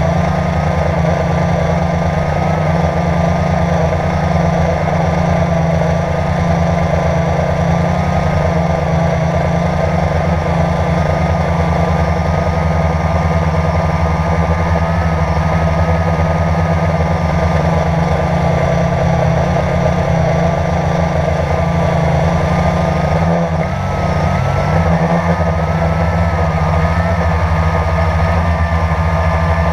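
Quadcopter drone's electric motors and propellers, heard close up through the onboard camera in flight: a loud steady buzz with a high whine that wavers a little in pitch.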